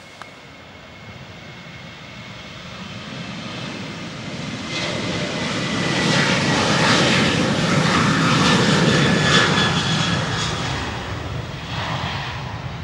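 Boeing 737-800 jet engines (CFM56-7B) running as the airliner passes along the runway. A rumble with a steady whine on top swells to its loudest about six to nine seconds in, then fades toward the end.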